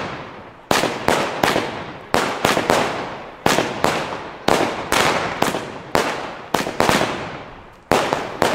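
Lesli 'Wütende Heidi' 100-shot fireworks battery firing, its shots banging in quick succession at about two a second. Each bang dies away over a fraction of a second before the next.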